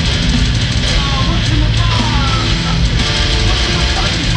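Instrumental heavy metal jam from electric bass, distorted electric guitar and drum kit, loud and steady. About a second in, high notes slide up and down in pitch over the band.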